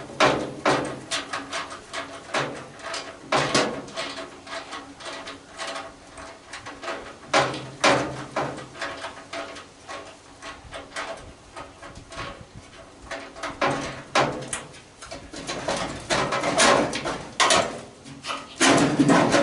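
Irregular metal clinks, knocks and rattles of a ratchet and socket working the bolts of a microwave oven's transformer and its sheet-metal casing.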